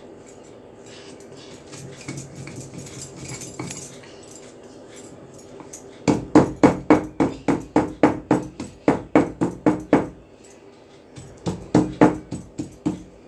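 Dried ginger being crushed on a stone grinding slab with a stone roller: after a quieter stretch, a fast run of stone-on-stone knocks about four a second starts about six seconds in, pauses briefly, and starts again near the end.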